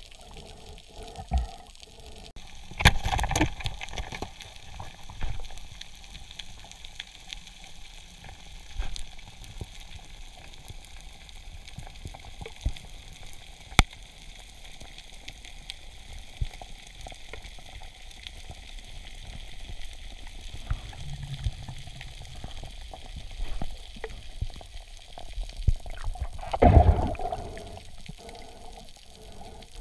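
Underwater ambience heard through a camera housing: a steady fizzing, crackling hiss with scattered clicks, and two louder rushes of noise, one about three seconds in and a bigger one near the end.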